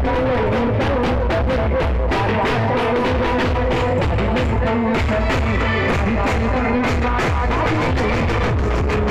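Loud live band music with a drum kit keeping a fast, steady beat under a held melody line.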